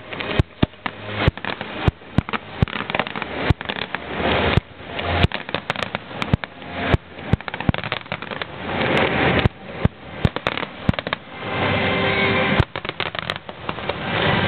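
Fireworks display: a rapid, irregular series of sharp bangs from bursting shells, thickening into two longer, denser stretches of noise about halfway through and again near the end.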